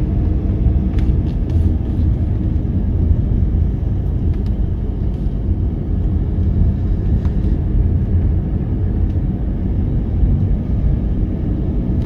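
Steady low rumble of a car driving on a paved road, engine and tyre noise heard from inside the cabin, with a few faint ticks.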